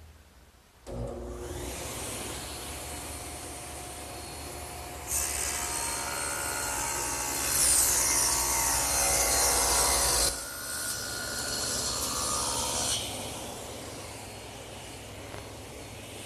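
Table saw starting up and cutting a bevel along a glued-up wood blank with the blade tilted: the motor runs steadily for a few seconds, the blade bites into the wood about five seconds in and cuts for about five seconds, then the saw runs on more quietly.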